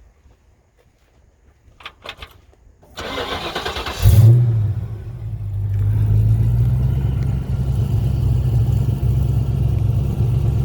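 A 302 HO V8 (5.0 L, from a 1993 Mustang GT) with stainless headers and Flowmaster mufflers being started: a few clicks, then the starter cranks for about a second. It catches about four seconds in with a brief rev and settles into a steady idle.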